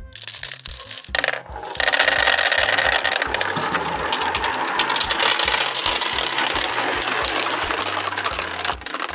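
Many marbles rolling and clattering together down a marble run, a dense continuous rattle of small hard balls knocking against each other and the track. It builds over the first two seconds and thins out near the end.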